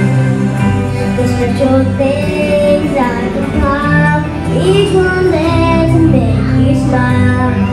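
A young child singing a melody into a microphone, amplified, over instrumental accompaniment with sustained low notes.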